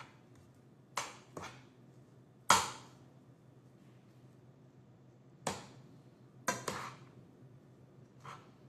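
A spoon knocking and scraping against a cooking pot while quinoa and spinach are stirred together: about seven scattered clinks, the loudest about two and a half seconds in.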